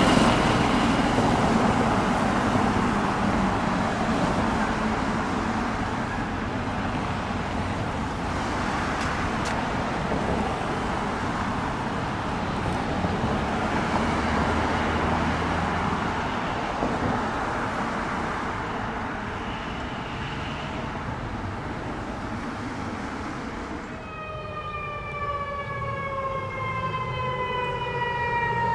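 A fire engine drives off, its engine and road noise slowly fading with a faint siren in the distance. In the last few seconds an approaching AMR ambulance's electronic siren sounds in a slow falling wail.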